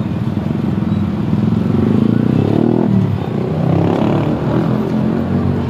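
Motorcycle traffic: several small motorcycle engines accelerating past, with the engine pitch rising about two seconds in, dropping, and rising again near four seconds.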